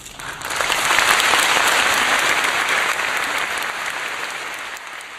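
Audience applauding: the clapping breaks out suddenly, is at its fullest about a second in, then slowly thins and fades.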